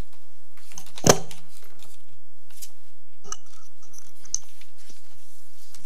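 A single sharp knock about a second in, followed by a few faint clicks and light rustling.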